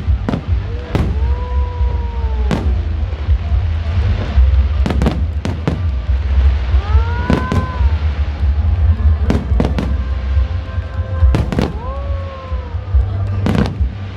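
Fireworks going off in a rapid series of sharp bangs over a continuous low rumble. Three whistling tones rise and then fall, each lasting about a second.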